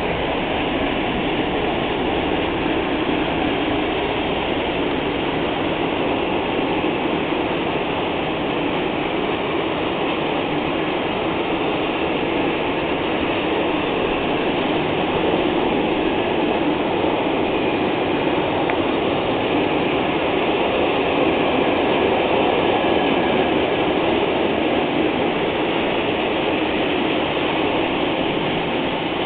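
Freight train hauled by an ET22 electric locomotive rolling past, its long line of wagons making a steady, loud rolling noise on the rails.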